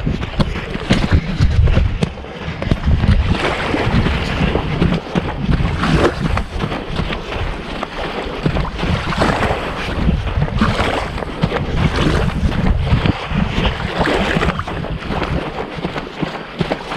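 Wind buffeting the microphone of a boat under way: a gusty, uneven rumble with a hiss of water beneath it.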